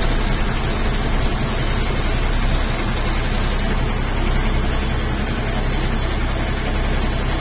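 Bus engine and road noise heard from inside the driver's cabin: a steady low drone as the bus rolls slowly forward.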